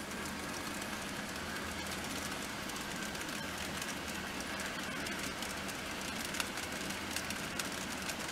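TOMIX N-scale C55 steam locomotive model and its passenger cars running on model track: a steady rolling rumble of small wheels on the rails, with light clicks at the rail joints that come thicker and sharper in the second half as the train draws near.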